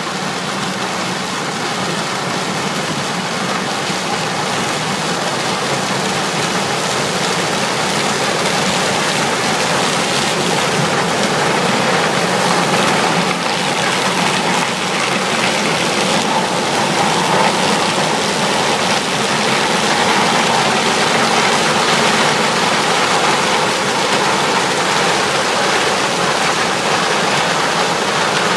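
Combine harvester harvesting maize, with a towed cob-collecting cart working alongside: a loud, steady rushing machinery noise of engine and crop handling, with chaff blowing out.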